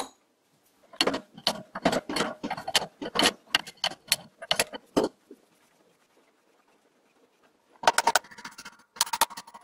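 Small metal lathe spindle parts clinking and tapping as they are handled: a quick run of light metallic clicks for about four seconds, a pause, then more clinks near the end as the bronze bearing is worked in the spindle housing.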